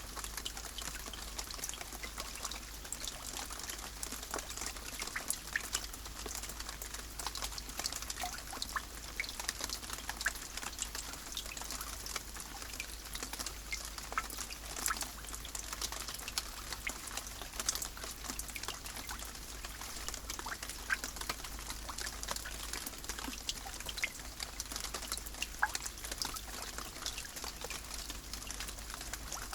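Steady rain, with many individual drops pattering and ticking at random over a continuous hiss.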